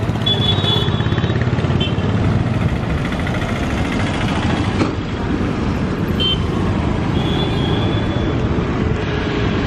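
City road traffic: motorcycles and cars running past on a busy street, a steady traffic noise.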